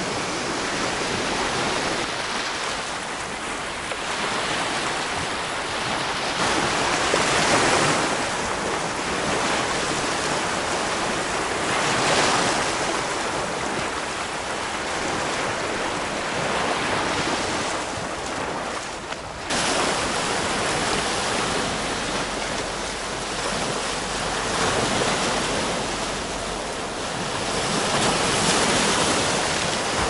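Small Mediterranean waves breaking and washing up over a coarse sand and shingle beach, the surf swelling and easing every few seconds. There is a sudden break in the sound about two-thirds of the way through.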